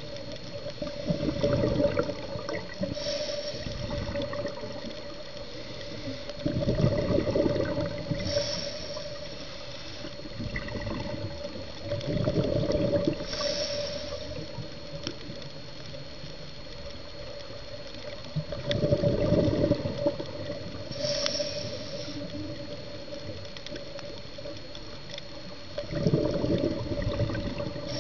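Scuba regulator breathing underwater: about five loud rushes of exhaled bubbles at roughly six-second intervals, each alternating with a short high hiss of an inhaled breath.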